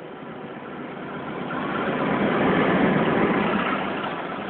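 Diesel locomotive of the Mutiara Selatan express passing close alongside on the adjacent track, its engine and running noise swelling to a peak about halfway through, then easing into the steady rush of its coaches going by.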